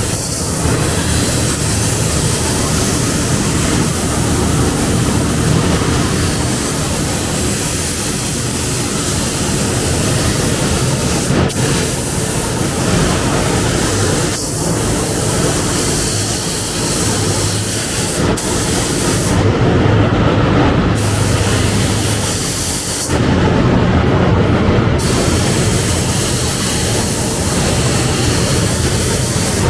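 Compressed-air paint spray gun hissing steadily while spraying clear coat, stopping briefly twice about twenty and twenty-four seconds in as the trigger is let go. The paint booth's ventilation fan drones underneath throughout.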